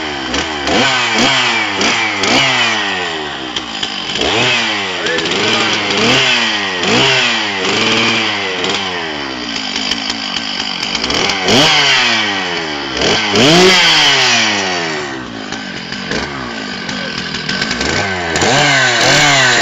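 Chainsaw engine running and being revved up and down over and over, its pitch rising and falling about once a second.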